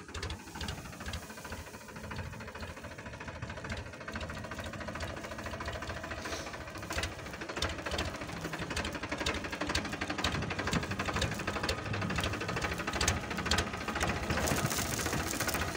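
Powertrac tractor's diesel engine running under load with a Shakti Kisan reaper binder cutting standing wheat, its reciprocating cutter bar making a fast, steady clatter. The sound grows gradually louder toward the end.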